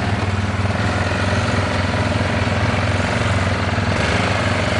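Yamaha ATV engine running steadily as the quad is eased forward onto the trail.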